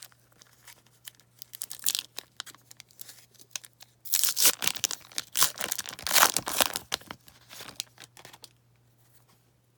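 Foil trading-card pack being torn open and crinkled by hand, the wrapper crackling loudest in the middle, then tapering off.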